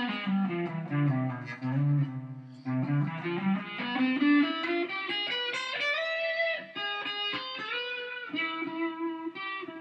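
Electric guitar playing single-note runs in C harmonic major (C D E F G A♭ B), moving down and back up through the scale, a line with an exotic colour from the flat sixth.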